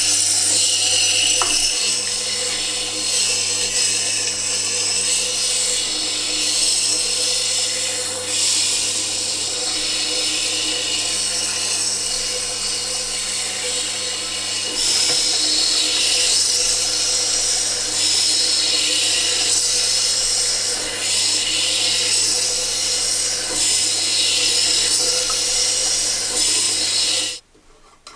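Tormek T8 sharpening machine running with a steel chisel ground against its diamond wheel: a steady hissing scrape over a low motor hum. The machine stops suddenly near the end.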